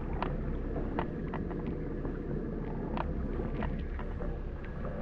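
Steady low rumble of wind on the microphone aboard a small boat, with scattered light clicks and taps.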